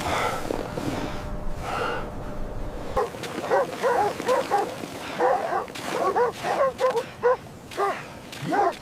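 Dog barking and yipping in a quick run of short, high calls, several a second, starting about three seconds in.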